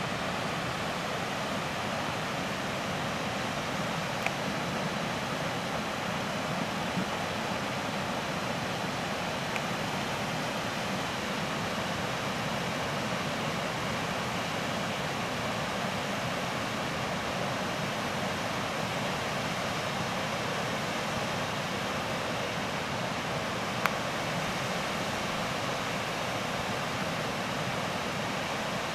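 Floodwater rushing through a desert wash, a steady rushing noise that doesn't change, with a couple of small clicks.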